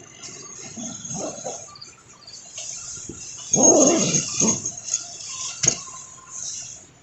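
Animal calls: a short one about a second in, then a louder, longer one a little past halfway, over a steady high insect chorus. A single sharp click follows near the end.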